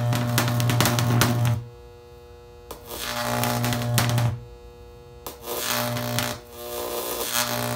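High-voltage electric arc burning yellow with sodium, giving a loud mains buzz laced with crackling. It cuts out three times, for about a second, half-way, and a short moment near the end, and strikes up again each time.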